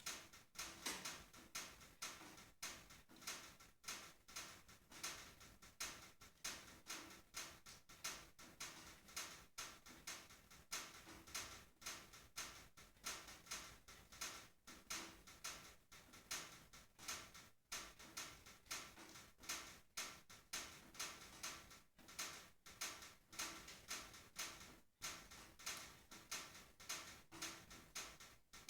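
Wood fire burning in a wood stove's firebox: faint, irregular crackling and snapping, about two or three cracks a second.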